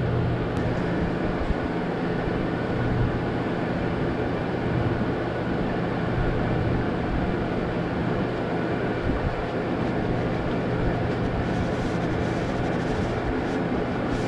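A steady mechanical drone: an even rushing noise with a low hum.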